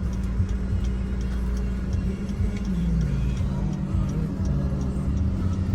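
Steady low rumble of a road vehicle in motion, with faint music and a wavering tone over it.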